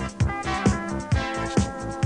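Electronic background music with a steady kick-drum beat, a little over two beats a second, over sustained synth tones.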